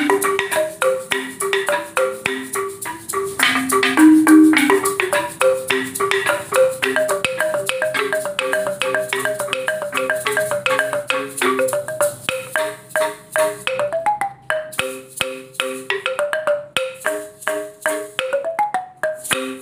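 Sundanese gamelan: struck metallophones playing a fast, repeating melodic pattern, many notes a second moving among a few pitches, with a brief thinning of the notes about 14 seconds in.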